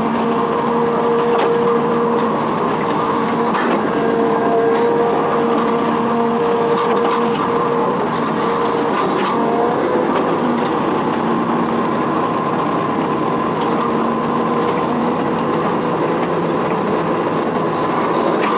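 Hitachi Zaxis 210F amphibious excavator's diesel engine running steadily, with a few steady tones over the rumble and occasional short knocks.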